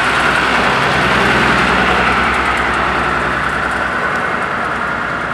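Road roller's diesel engine running steadily, with a steady higher hum above the engine note, slightly quieter near the end.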